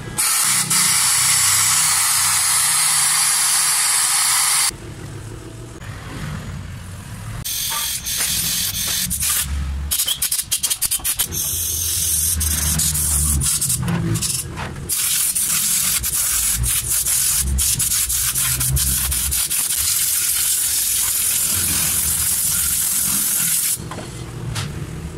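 Compressed air hissing from an air gun as it blasts engine parts clean: a long blast that cuts off about five seconds in, then many short on-off blasts, and a long steady blast that stops just before the end.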